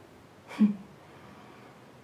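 A single short vocal sound from a woman about half a second in, a brief voiced breath or murmur, then quiet room tone.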